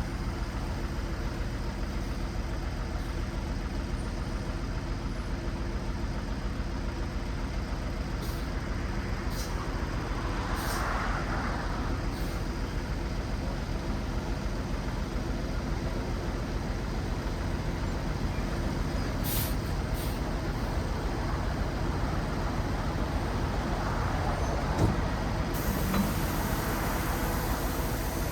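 A 9 cubic yard dump truck's diesel engine running steadily, with a brief hiss about ten seconds in and a sharp knock near the end.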